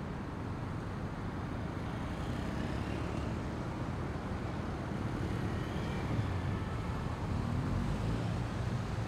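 A group of motorcycles, mostly BMW adventure bikes and sportbikes, running together in a steady low rumble. It grows a little louder, with a faint rising engine note, near the end as bikes begin to move off.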